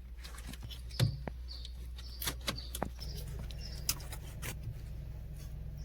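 Birds chirping in short high notes, over a steady low hum, with a few sharp clicks and taps scattered through.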